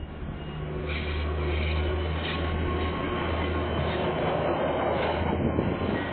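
Diesel locomotive hauling a container freight train past, its engine a steady low drone that grows louder over the first couple of seconds. The rumble of the wagons' wheels on the rails joins in as the train passes.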